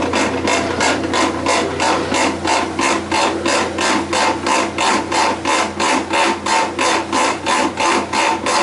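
Kenmore 90 series washer in its spin cycle, making a loud, horrendous grinding noise: harsh beats about four times a second over a steady low hum. The owner believes the transmission is at fault.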